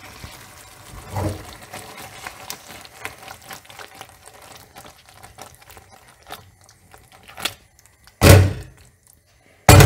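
Fileja pasta being stirred through tomato sauce in a pan: a run of small clicks and scrapes, then two loud thunks, one about eight seconds in and one at the very end.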